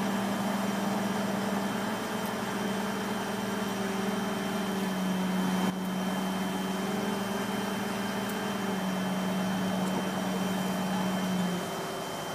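Crane truck's engine running steadily with a low hum, which stops near the end.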